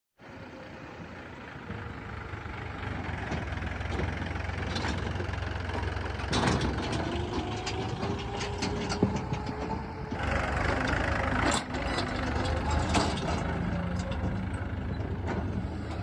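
Powertrac Euro 50 tractor's diesel engine running with a steady low hum, and scattered knocks and rattles. About ten seconds in there is a louder rush of noise lasting a second or so.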